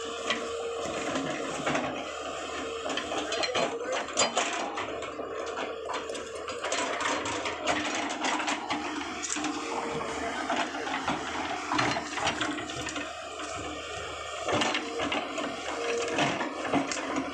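Tata Hitachi EX200 excavator at work: engine and hydraulics running with a whine that comes and goes, over irregular knocks and clatter as the bucket digs through soil and stones.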